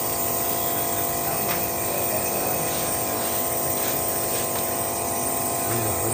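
A steady mechanical hum holding many fixed tones at an even level, with a few faint clicks.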